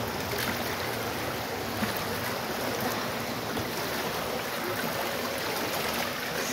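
Stream water flowing steadily over rocks, a continuous rushing.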